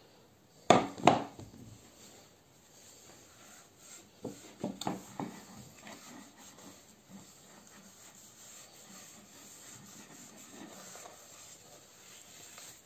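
Two loud knocks about a second in and a few lighter knocks around five seconds in, from the turned wooden bowl being handled on a tiled counter, then a steady rubbing as a cloth works oil into the bowl's surface.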